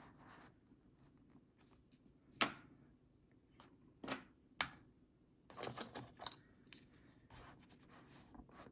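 A few sharp clicks and taps, the loudest about two and a half seconds in, and a brief rustle around six seconds in: wooden colored pencils and a coloring book being handled on a table.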